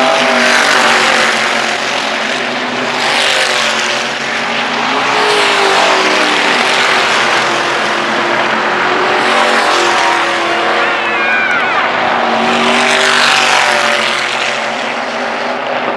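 Dirt-track race cars' engines running at racing speed, a loud steady drone that swells and fades several times as the cars pass by on each lap.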